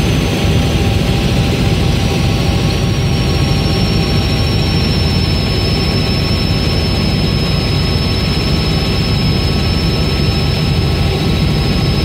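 Aircraft engine noise heard from inside the cabin: a loud, steady drone with a high turbine whine that slides slightly lower in pitch about three seconds in and then holds steady.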